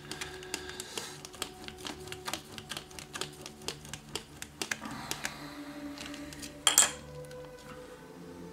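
Rapid light plastic clicks, about four a second, as a flat block is rolled back and forth over putty on a thin plastic tub lid, with the lid flexing and tapping against the table. There is a louder, short rustling clatter about seven seconds in.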